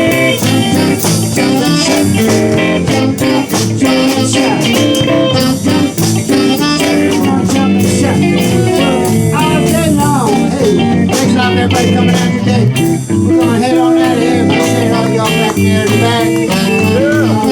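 Live blues band playing an instrumental stretch of a jump-blues song, with electric guitar over bass and drums.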